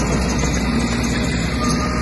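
Komatsu D20P bulldozer's diesel engine running steadily under work, a continuous low rumble.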